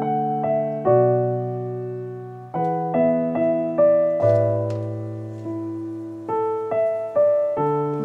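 Background piano music: a gentle melody of single notes and chords, each struck and then fading.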